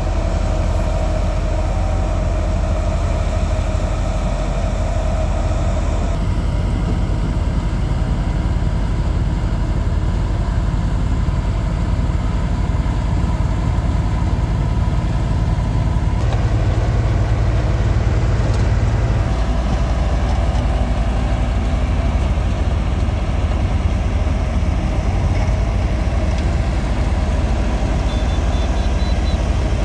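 Heavy diesel engines of earthmoving machines running steadily, mainly a Komatsu D50A crawler bulldozer pushing soil. The engine note shifts abruptly about 6 and 16 seconds in.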